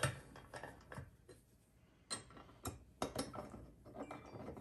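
Scattered light metallic clicks and taps as a small hand tool works the screws of a polished billet-aluminium badge plate, with a few sharper ticks around the middle.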